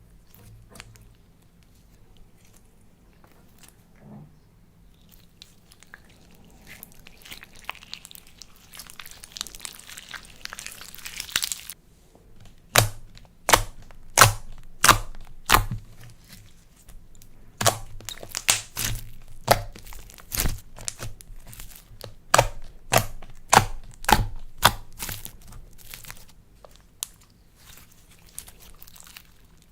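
Slime being kneaded and squeezed by hand. A soft crackling stretch builds up first, then a run of sharp, loud pops and snaps comes in irregular succession through the middle, with faint clicks before and after.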